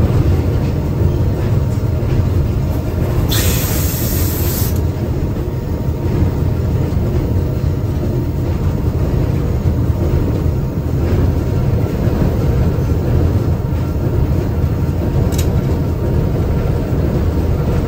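ALCO RS-1 diesel locomotive's six-cylinder turbocharged engine running steadily, heard from inside the cab as the locomotive rolls along. About three seconds in, a short hiss lasts over a second, and a single click comes near the end.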